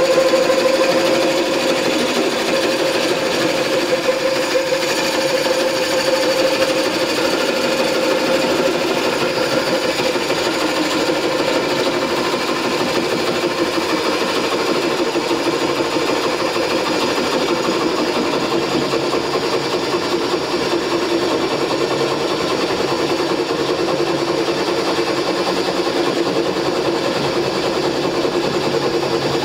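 Home-made bowl coring machine spinning a large, unbalanced block of wood while a coring knife is levered into it: the electric drive runs under load with a steady, fast rattling chatter from the cut. Its main tone sinks a little after the first several seconds.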